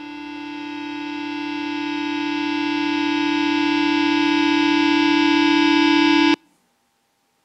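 Soundtrack music: one sustained chord that swells steadily louder for about six seconds, then cuts off abruptly.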